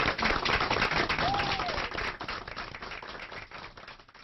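Audience clapping and cheering, with one short cheer about a second in. The applause fades out over the last two seconds.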